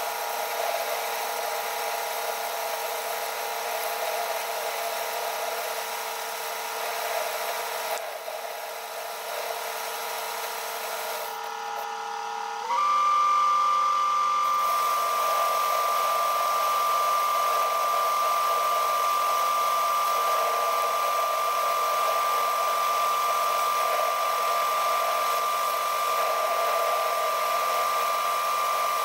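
TV-16 lathe running steadily with a whine from its drive, while a cutter turns a steel blank. About 13 seconds in, the whine jumps up in pitch and gets louder, then holds steady.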